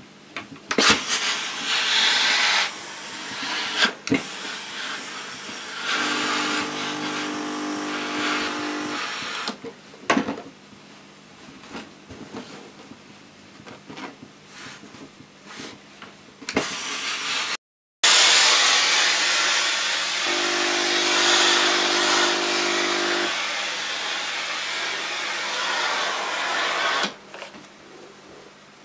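Tefal Effectis GV6720 steam generator iron releasing steam in long hissing bursts, separated by a few sharp clicks; the longest and loudest burst comes in the second half. Twice a steady buzzing hum sounds along with the hiss.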